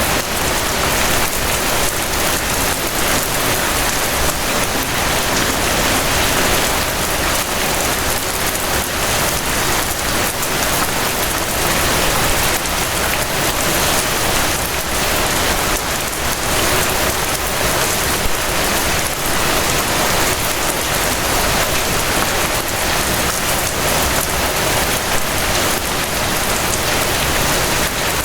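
Gentle rain falling steadily, an even hiss of many small drops with no breaks.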